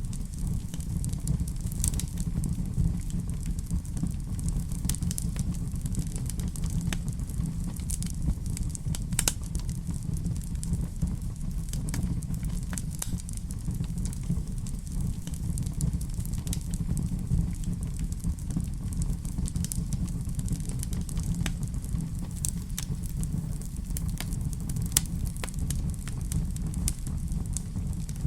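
Fire burning in a fireplace: a steady low rumble with scattered sharp crackles and pops.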